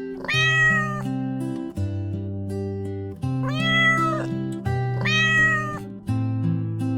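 A cat meowing three times, each meow rising then falling in pitch, over gentle background music.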